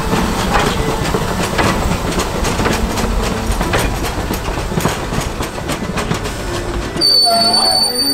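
Narrow-gauge 4-4-0 steam locomotive and its wooden coaches rolling slowly along a station platform: a rumble with irregular clacks from the wheels. About seven seconds in, a high steady wheel squeal starts suddenly as the train slows.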